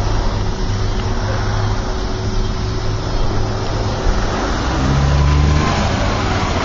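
A car's engine drawing near as it drives up, its low note rising and swelling about five seconds in, over a steady low background rumble.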